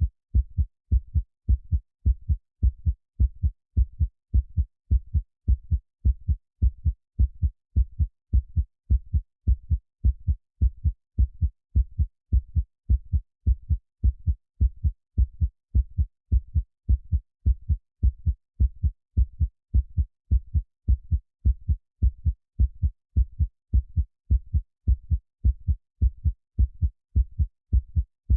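Heartbeat sound: a steady, regular lub-dub pulse, each beat a deep, muffled double thump, repeating without change.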